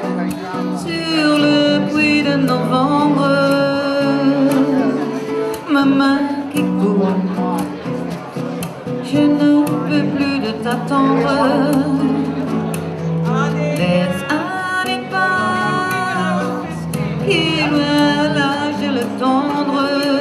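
Live music: an acoustic guitar being played with a voice singing a wavering melody over it.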